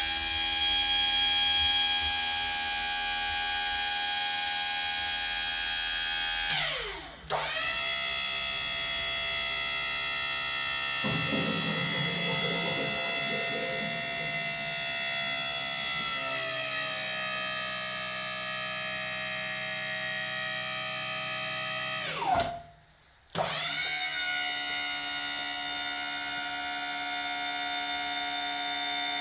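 Hydraulic power pack's motor and pump running with a steady whine of many tones while a rebuilt hydraulic cylinder is cycled in and out for a function test. Twice the whine falls in pitch and nearly dies away, then climbs back up to speed.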